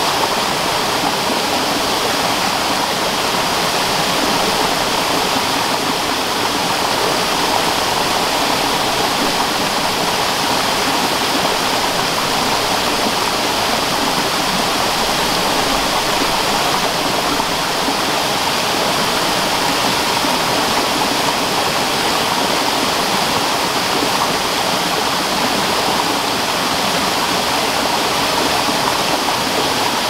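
Mountain stream cascading down a waterfall and rushing over large boulders: a loud, steady rush of water that never changes.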